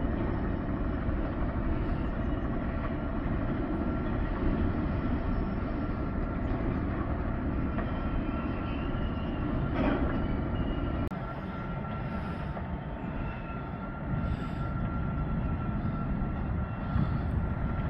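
Class 66 diesel locomotive's two-stroke V12 engine working as it hauls a train of covered hopper wagons past, a steady low rumble with a faint steady whine above it, a little quieter about eleven seconds in.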